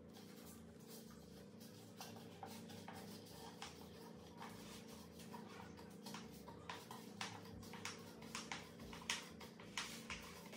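An IKEA Lack table leg being screwed in by hand, giving quiet small clicks as the leg turns on its screw against the tabletop. The clicks come more often and louder in the second half, over a steady low hum.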